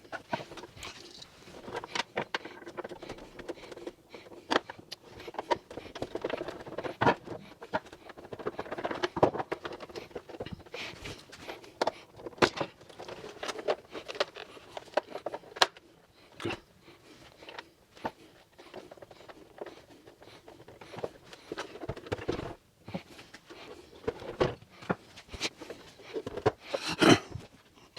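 Irregular clicks, taps and scrapes of the plastic casing and parts of a Pentair Kreepy Krauly Racer pool cleaner being handled and screwed back together.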